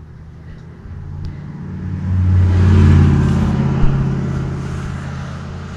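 A motor vehicle's engine: a low, steady drone that swells over about two seconds and then slowly fades away.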